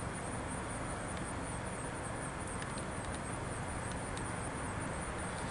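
Steady low rumble and hiss of a car, heard from inside its cabin, with a few faint ticks.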